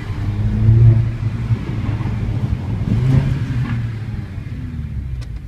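Mercedes-AMG A45's turbocharged 2.0-litre four-cylinder engine, heard from inside the cabin, pulling through two short bursts of acceleration: one about a second in and another about three seconds in, easing off between and after them.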